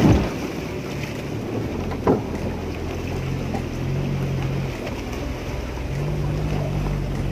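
Suzuki Vitara-family 4x4 engine running as the vehicle crawls over a rough offroad track, heard from inside the cabin; the engine note rises and falls, with two sharp knocks of the body jolting, one at the start and one about two seconds in.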